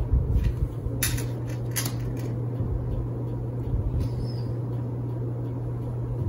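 Steady low hum with two brief sharp rustling clicks, about one second and two seconds in.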